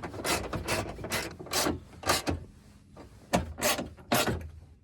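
Hand ratchet wrench tightening the window regulator's mounting bolts inside a truck door, clicking in short swings about two a second, with a brief pause in the middle.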